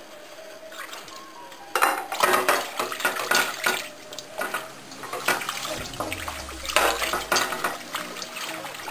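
A whisk rattling and scraping quickly against the sides and bottom of a stainless steel pot, beating fish stock into a butter-and-flour roux for a béchamel. The whisking starts about two seconds in and keeps on in fast, irregular strokes.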